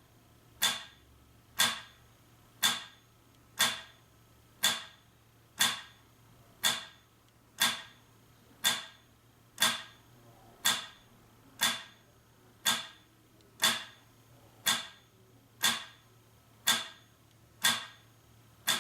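Metronome ticking steadily at 60 beats per minute, one sharp click each second, all evenly loud.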